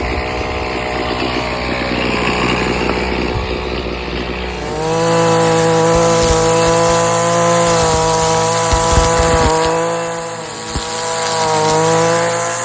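Gas-powered string trimmer engine running at high throttle with a steady high-pitched whine, easing off briefly near the end. For the first few seconds before it comes in, a lower, rougher machine noise.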